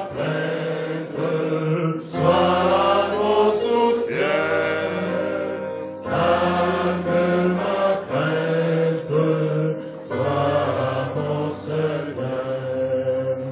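A group of voices singing a slow hymn together, phrase by phrase with short breaks about every two seconds, over a steady held note.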